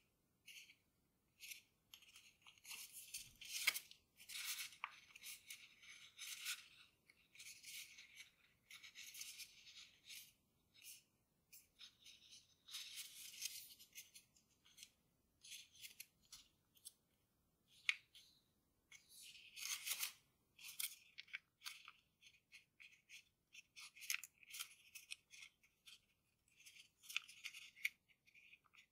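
Faint paper rustling and crinkling in short irregular bursts as textured Grainy origami paper is pinched and bent while a folded wolf is shaped by hand, with a few sharper crackles.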